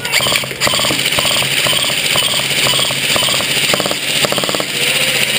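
Airsoft electric gun firing in rapid short bursts, a buzzing mechanical rattle repeated about three times a second, which stops about four seconds in.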